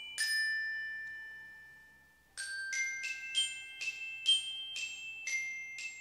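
Bright glockenspiel-like mallet notes in a short end jingle: one struck note rings out and fades away. Then, from about two seconds in, comes a quick tune of about a dozen struck notes, roughly three a second.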